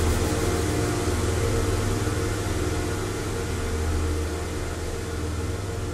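Ambient synthesiser drone: a steady low hum under a wash of hiss. The higher held tones fade out in the first second or so, and the whole sound slowly gets quieter.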